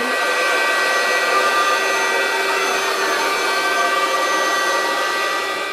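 Electric air pump running steadily, a hissing whir with several steady tones, blowing up an inflatable toy castle; it fades near the end.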